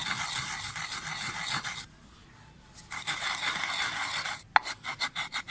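Ajwain seeds and rock salt being ground by hand, with fast, repeated scraping strokes several times a second. The strokes stop for about a second midway, then resume and slow to separate strokes near the end, with one sharp click.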